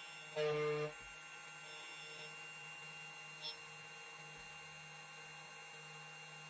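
2M2 Magic Tank key cutting machine running steadily while it cuts a flat key blank, a constant whine of several steady tones. A brief louder pitched sound comes about half a second in.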